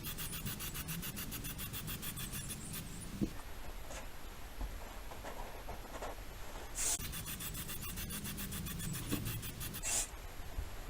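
Aerosol spray-paint can being shaken, its mixing ball rattling in a fast, even run for about three seconds, followed later by two short hisses of spray.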